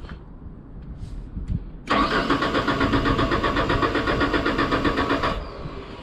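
Genie S-60 boom lift's engine cranking on its starter for about three and a half seconds without firing, starting about two seconds in and then cutting off, with a brief falling whine as the starter spins down. It is a crank-no-start: no fuel pump comes on while it cranks.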